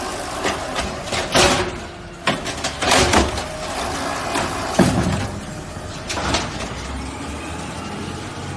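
Garbage truck engine running steadily, with several loud metallic bangs and clanks over it, the sharpest about a second and a half, three and five seconds in.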